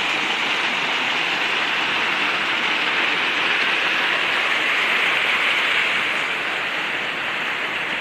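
Small waterfall rushing: a steady, even hiss of falling water.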